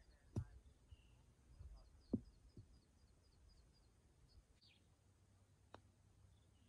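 Near silence outdoors: faint, rapid bird chirps through the middle seconds and a few soft, short knocks.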